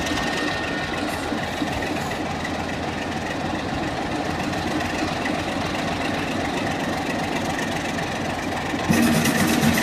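Class 24 diesel-electric locomotive's Sulzer engine running as the train pulls slowly away, a steady mechanical drone. Near the end the sound steps up louder and a steady low tone joins it.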